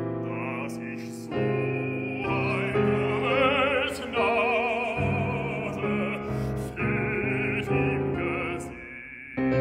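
Baritone singing a German art song with piano accompaniment; the voice swells with a wide vibrato on its held notes.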